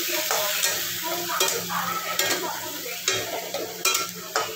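Ginger, garlic and mustard-seed paste sizzling in hot mustard oil in a metal kadhai, stirred with a spatula that scrapes against the pan every second or so. The paste is being fried until light brown and its raw smell is gone.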